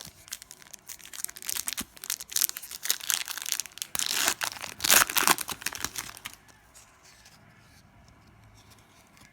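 A foil trading-card pack being torn open and crinkled by hand, a dense crackling that is loudest about four to five seconds in and stops after about six and a half seconds.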